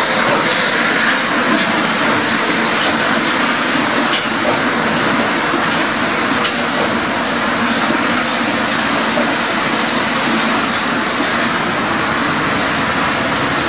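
Rubber-tyred MP 73 Paris Métro train running past at close range: a steady rushing noise of the wheels and running gear that holds at an even level throughout.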